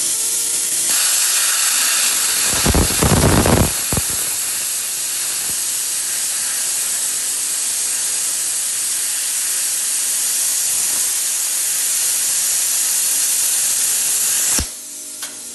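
HITBOX HBC5500 plasma cutter running a loud, steady hiss of compressed air through the torch. About three seconds in, a louder, rougher burst lasts just over a second as the arc cuts through the 1/4-inch steel. The air keeps hissing afterwards and cuts off suddenly near the end.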